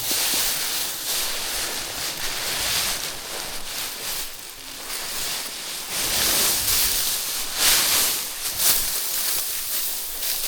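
Dry harvested rice stalks rustling and swishing as paddy is threshed by hand, the noise swelling and ebbing, with a couple of sharper knocks about two-thirds of the way through.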